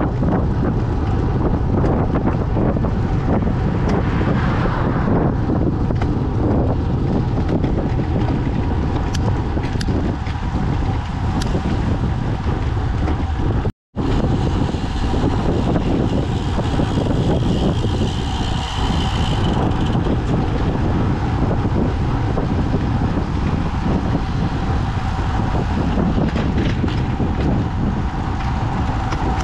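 Wind noise on the camera microphone during a bicycle ride: a steady low rumble, broken by a brief drop-out about fourteen seconds in.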